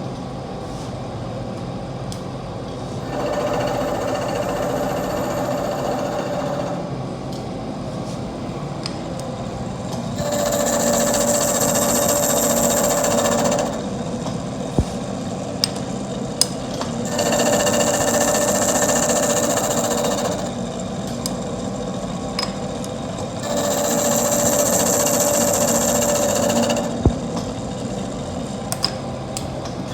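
Milling machine running, with its cutter biting into the workpiece in four repeated passes of about three to four seconds each, each pass adding a hiss and a steady tone. Between passes the machine runs on more quietly, with a few sharp clicks.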